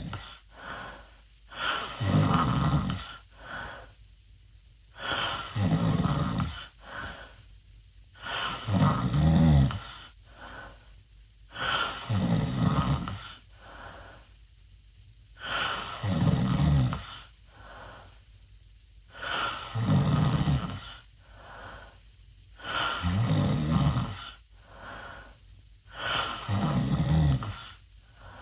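A teenage boy snoring loudly through an open mouth. A loud snore comes with each breath in, about every three and a half seconds, and each is followed by a softer breath out.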